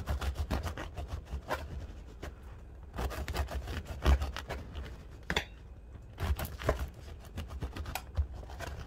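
Bread knife sawing through the crisp crust of a round wholemeal loaf on a wooden board: crackly sawing strokes in three spells, with one sharp crack about four seconds in.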